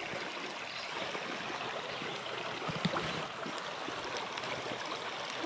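Small creek's water flowing steadily, an even rushing babble, with a few faint clicks about three seconds in.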